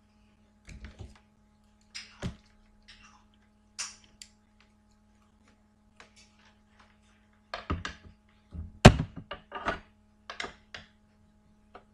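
Irregular knocks, thuds and clicks of things being handled at a desk, the loudest a sharp knock about nine seconds in, over a faint steady electrical hum.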